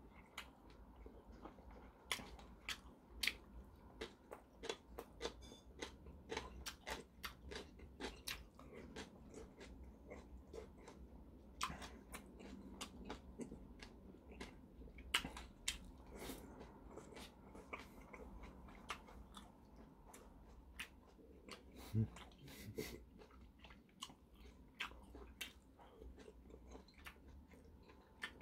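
Close-miked chewing of malatang and pickled radish: a steady run of small wet mouth clicks and crunches.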